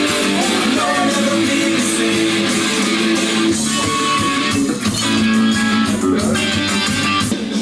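Guitar-driven music playing steadily.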